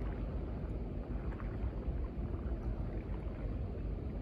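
Steady low rumble of wind buffeting the microphone, with water lapping in small splashes against a concrete seawall.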